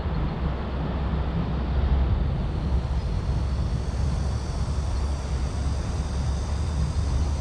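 Steady, loud low rumble of wind buffeting the microphone outdoors.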